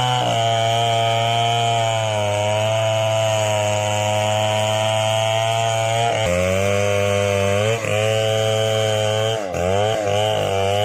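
Chainsaw engine running at high revs while cutting through wood. The pitch wavers with the load and drops briefly twice near the end as the chain bites harder.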